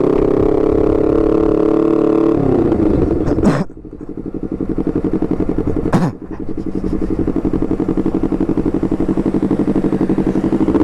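Honda CBR250RR parallel-twin engine through an R9 GP aftermarket racing exhaust, running steadily, then the revs falling away about two seconds in. Two sharp cracks come about two and a half seconds apart, and the engine then runs on at low revs with an even pulsing beat.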